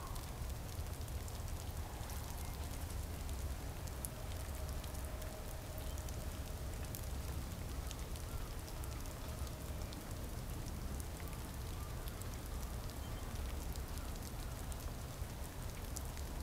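Water drops pattering in an irregular, scattered patter of small ticks over a steady low rumble.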